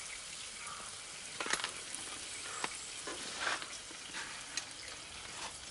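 Meat sizzling on a hot grill plate, with several sharp clicks and scrapes of a utensil against the metal, the loudest about one and a half seconds in.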